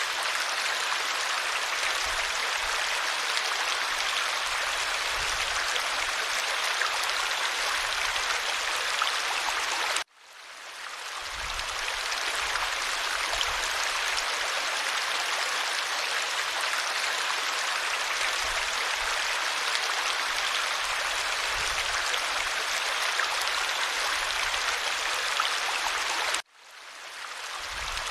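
Stream water running with a steady rushing sound. About ten seconds in and again near the end it cuts out suddenly and swells back up over a second or two.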